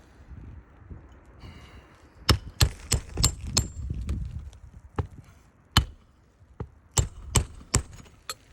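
Hammer blows on a RoofSnake shingle tool, driving a roofing nail flush under a shingle: about eleven sharp metallic strikes with a short ring, a quick run of five starting about two seconds in, then scattered blows.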